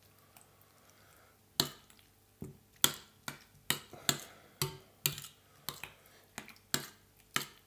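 Metal spoon clinking against a ceramic bowl while stirring beaten eggs into cooked potatoes. The sharp taps start about a second and a half in and come about two or three a second.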